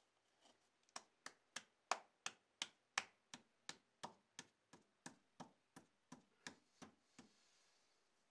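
A hand tapping a brick to bed it into wet mortar: about nineteen sharp, evenly spaced taps, roughly three a second, starting about a second in and stopping about a second before the end.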